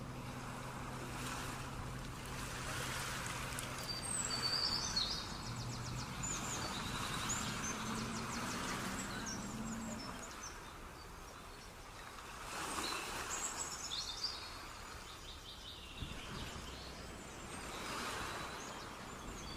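Street ambience: passing traffic swelling and fading, with a low steady hum that stops about ten seconds in. Birds chirp in quick high runs around four to six seconds in and again after about twelve seconds.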